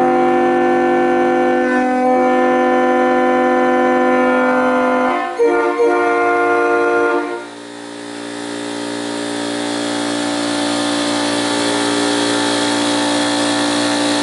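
Three-chime mutt train horn, a Leslie 25 bell paired with Prime 31 and 37 bells on Prime power chambers, blowing a long chord, with a brief break and re-sounding about five seconds in. From about seven seconds the chord drops sharply and sounds weaker under a rising rush of air.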